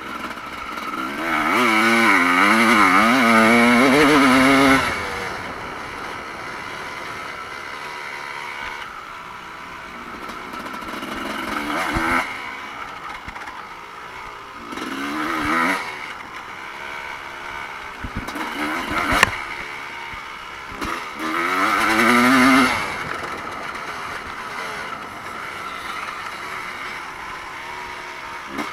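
Evo-class motocross bikes racing past on the track, engines revving hard and dropping back through the gears, with one loud pass near the start and another near the end over a steady background drone of bikes. A single sharp crack comes about two-thirds of the way through.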